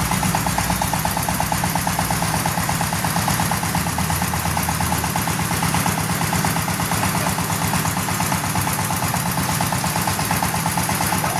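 Hand tractor engine running steadily with a rapid, even firing beat.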